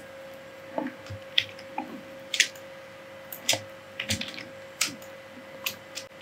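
Computer keyboard and mouse clicking: about eight short, irregularly spaced clicks and taps over a faint steady hum.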